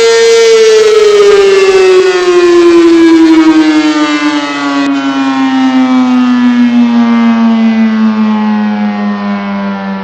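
ACA P-15 siren winding down: its loud tone holds steady for about half a second, then falls slowly and evenly in pitch, which is how a siren sounds as it runs down at the end of a test cycle.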